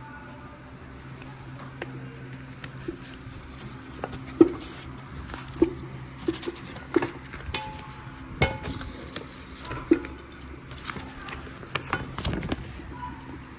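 Carote granite non-stick cookware being handled: pans, pots and lids knocking and clinking against each other and the packaging in about a dozen irregular knocks, the loudest about four and a half seconds in.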